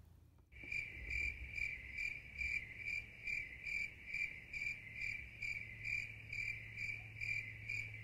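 Cricket chirping in an even rhythm, a little over two chirps a second. It starts suddenly about half a second in, over a faint low hum.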